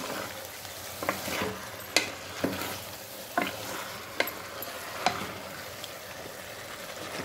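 Spatula scraping and knocking against the pot while marinated chicken is stirred into hot oil, over a steady sizzle. The scrapes come about once a second.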